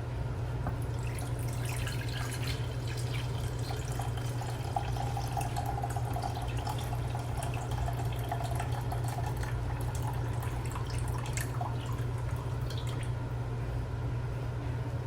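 Water used to soak and rub rice being poured off into a pan, trickling and dripping with many small splashes, over a steady low hum.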